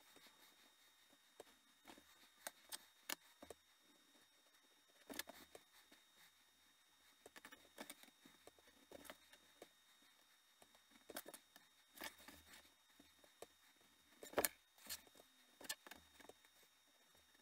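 Faint, scattered light clicks and scrapes of a steel ruler and hand tool being set down and shifted on leather and a cutting mat while rune lines are scribed, with one sharper click near the end.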